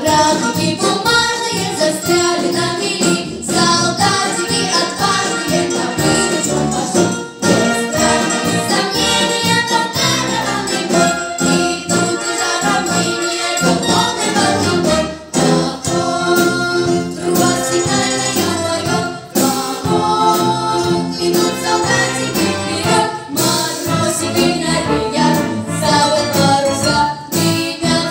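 A children's vocal group singing a song in unison into microphones, accompanied by a military brass band with saxophones, trombone and drum kit.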